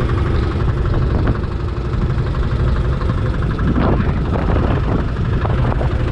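Fishing boat's engine running steadily, with a few short knocks about four seconds in.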